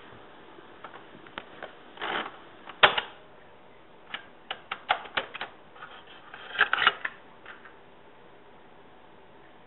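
Irregular sharp clicks and short crackling bursts over low tape hiss, loudest about three seconds in and again near seven seconds. After about eight seconds only the hiss remains.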